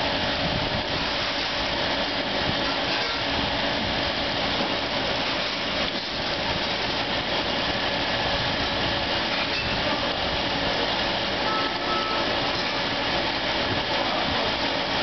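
Steady hum and hiss of the aeration pumps and bubbling water in live seafood tanks, unchanging throughout.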